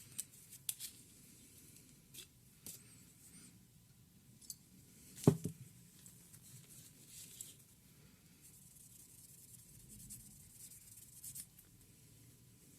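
Small clicks and light scraping from laptop parts being handled and worked on with hand tools, with one sharper knock about five seconds in.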